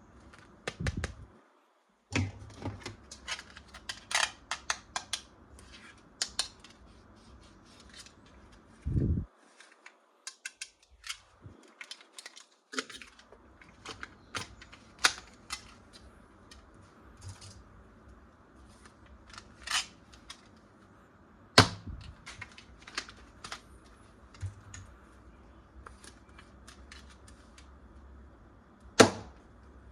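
Hands unboxing plastic toys: irregular clicks, taps and snaps of plastic parts and packaging, with a few sharper, louder clicks and a short low thump.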